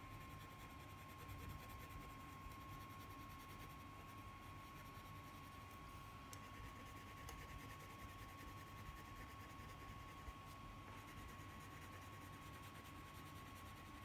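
Faint scratching of a blue crayon rubbed back and forth on paper, under a low hiss and a steady thin tone.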